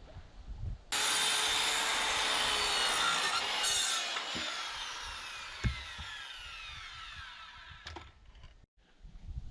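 Power saw cutting into a piece of lumber: it starts abruptly and cuts for about three seconds, then the motor winds down with a falling whine, with one sharp knock as it slows.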